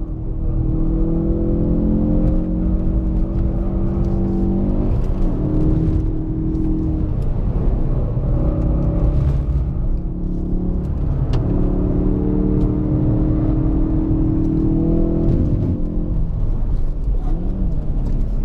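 Ford Focus RS's turbocharged 2.3-litre four-cylinder engine heard from inside the cabin, pulling hard on a track lap. Its note holds fairly steady in pitch, with several short breaks where it drops off and picks up again.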